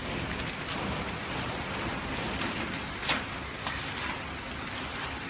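Horizontal pillow-type flow-wrapping machine running, a steady mechanical noise with a single sharp click about three seconds in.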